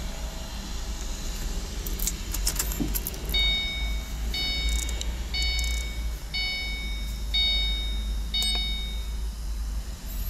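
Keys rattle and click, then the 2009 Mustang GT's electronic warning chime sounds six times, about once a second, over a steady low rumble.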